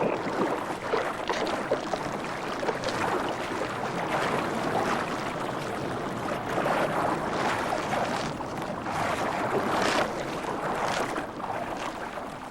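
Sea water splashing and sloshing unevenly, a continuous choppy wash with many short splashes.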